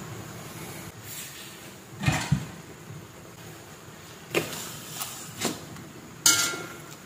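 Kitchen clatter: a handful of separate knocks and clinks, the loudest near the end a metal spoon striking the wok with a short ring.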